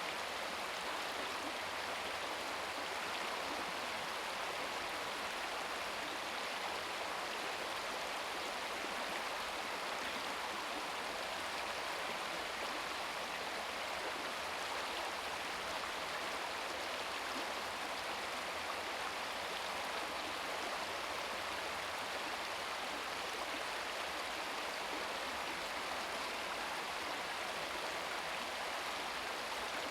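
Shallow brook babbling and splashing over rocks, a steady rush of running water.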